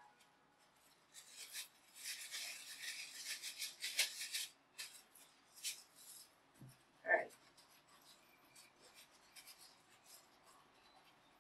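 Thin disposable plastic glove crinkling and rustling, most densely for a couple of seconds starting about two seconds in, then soft scattered rubbing and light taps as the gloved hand presses wet dough into a non-stick metal baking tin.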